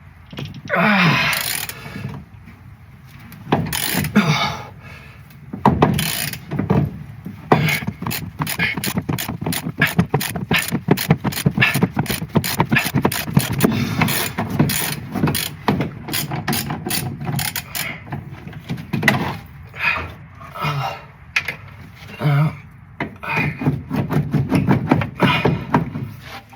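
Ratchet spanner clicking in quick runs while a bolt is worked loose, with a few scrapes and knocks in between.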